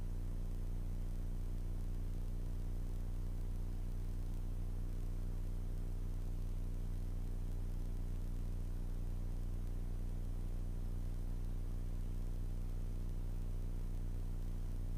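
Steady drone of a Grumman AA-5B Tiger's four-cylinder Lycoming engine and two-blade propeller in flight, heard from inside the cabin as an even low hum with a hiss of wind and air noise over it.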